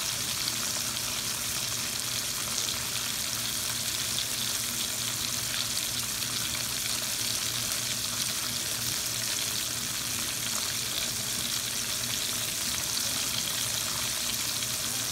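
Breaded chicken cutlets shallow-frying in oil in a pan: a steady sizzle with fine crackling.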